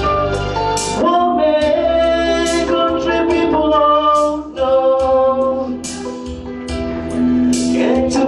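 A man singing a slow song into a handheld microphone, holding long notes that glide between pitches, over a guitar-led accompaniment with regular percussion strikes.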